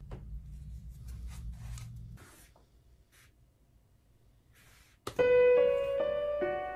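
A low hum with a few faint clicks, then a moment of near quiet. About five seconds in, a piano beat starts: single piano notes stepping up and down over a low bass, the instrumental for a rap.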